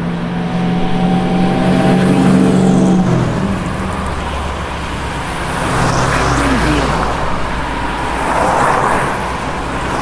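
Road traffic, with cars driving past. A steady engine note fades and drops away about three seconds in, then tyre and engine noise swells as cars pass around six and nine seconds.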